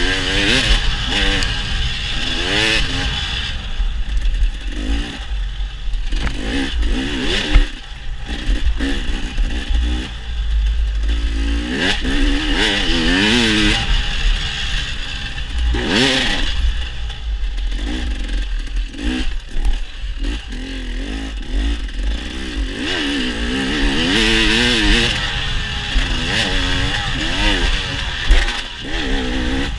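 Dirt bike engine revving up and down over and over as it is ridden, over a constant low rumble, with now and then a sharp clatter from the bike over rough ground.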